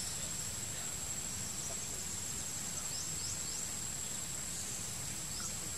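Steady high-pitched insect trill, with a few faint short downward chirps about three seconds in and near the end.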